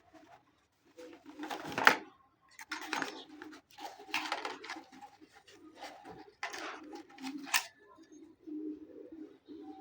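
Several short bursts of rustling and handling noise from a fragrance box and its packaging, over a low cooing that runs underneath, like a pigeon or dove.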